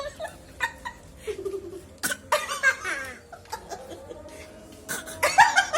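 Short bursts of laughing and giggling, several separate outbursts, the loudest about two seconds in and near the end.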